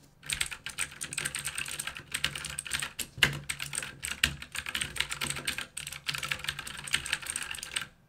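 Fast typing on an AUKEY 87-key mechanical keyboard with imitation Cherry MX Blue clicky switches: a dense, continuous clatter of a little loud key clicks that starts just after the beginning and stops near the end.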